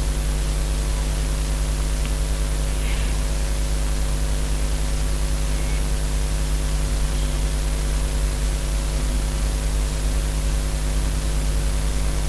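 Steady hum and hiss of background noise on the recording microphone, with a strong low rumble and a few constant hum tones, unchanging throughout.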